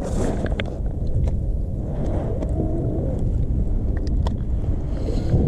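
Steady low rumble of wind buffeting the microphone, with a few faint clicks and knocks of handling in the kayak.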